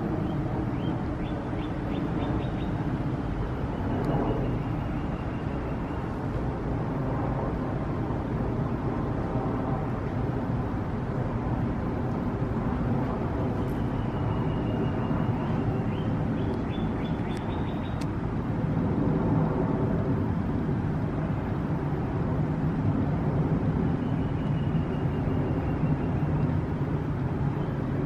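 Steady low outdoor background rumble, like distant traffic, with a faint high call heard three times.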